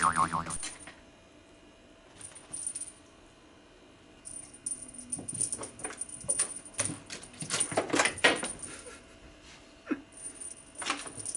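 A cat toy jingling and rattling in irregular bursts as kittens bat at it, with a few sharp clicks and taps.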